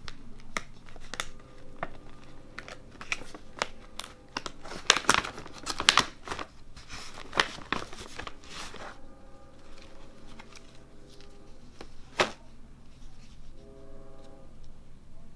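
Plastic treat pouch crinkling and rustling as a hand rummages inside it and draws out a dried whole capelin. The crinkling is loudest about five to six seconds in and dies away after about nine seconds, with one sharp crackle near twelve seconds.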